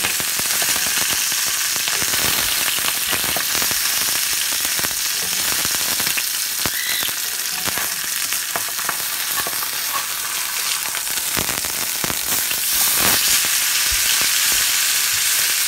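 Salmon fillet sizzling and spattering in hot vegetable oil in a cast-iron skillet. Scattered clicks and scrapes of a slotted metal spatula work it loose from the pan, with a stronger clatter a little before the end as the fillet is turned over.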